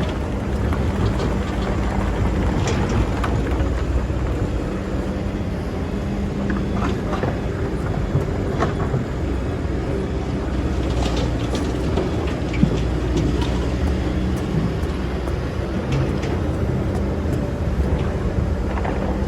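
Excavator engine running steadily, with scattered short scrapes and clicks as the bucket works in sand.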